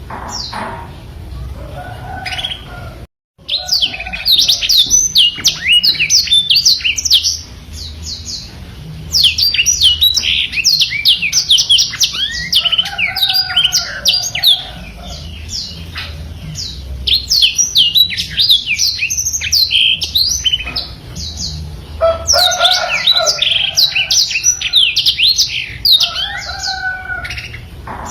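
A black-throated canary (blackthroat) sings long, fast rolling runs of high twittering notes in bursts of several seconds, with quieter stretches of lower chirps between them. The song cuts out completely for a moment about three seconds in.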